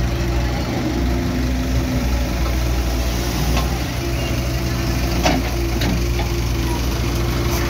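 A heavy diesel engine running steadily at low revs, with a few brief sharp knocks about three and a half and five seconds in.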